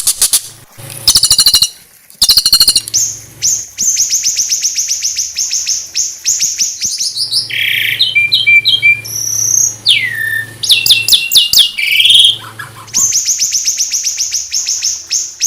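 Small songbird singing a fast, varied song: long runs of rapid repeated high notes, broken by short chirps and a few downward-sliding whistles.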